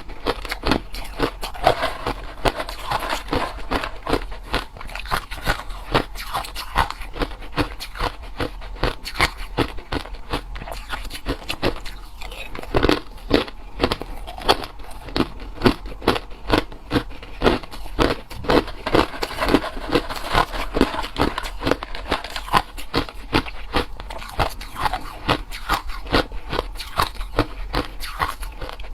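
Close-miked chewing of ice: dense, sharp crunching and crackling bites, several a second, without a break.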